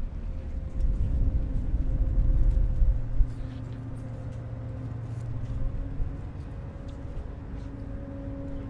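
A ferry's engine running with a steady low hum, with gusts of wind buffeting the microphone for the first three seconds.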